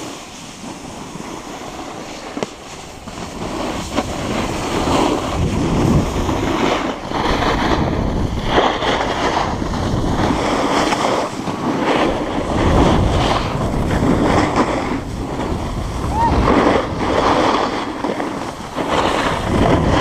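Wind rushing over the action camera's microphone and snowboards scraping and sliding over snow during a run, a loud rushing noise that surges up and down, quieter for the first few seconds and louder from about four seconds in.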